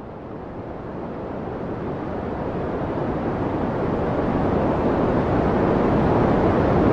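Steady rushing noise with no pitch or rhythm, growing steadily louder.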